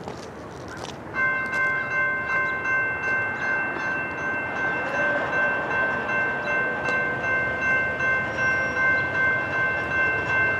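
Air horn of a Norfolk Southern GE AC44C6M locomotive sounding one long, steady chord of several notes, heard from a distance as the train approaches. It starts about a second in and wavers slightly in loudness, over a low rumble of the train.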